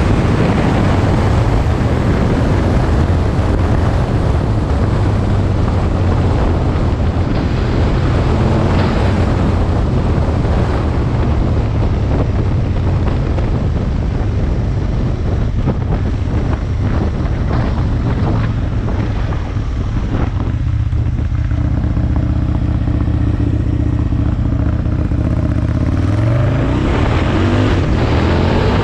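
Aprilia Tuono 1000's V-twin engine running while riding, with wind rushing over the microphone. The engine note eases off about two-thirds of the way through, then rises again near the end as it accelerates.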